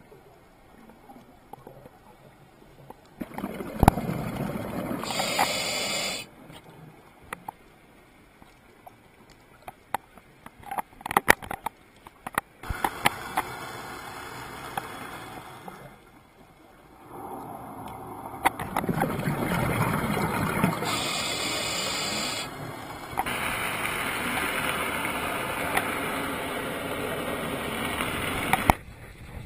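Scuba regulator breathing heard underwater through a camera housing: rushes of exhaled bubbles lasting a few seconds, about three seconds in, again past the middle, and through most of the second half. Small clicks and crackles fill the quieter gaps.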